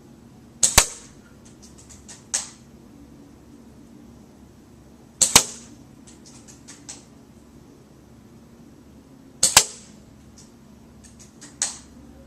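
L96-type bolt-action airsoft sniper rifle firing three shots about four seconds apart, each a sharp double crack. A second or so after each shot comes a quick run of clicks and a clack as the bolt is worked to chamber the next BB.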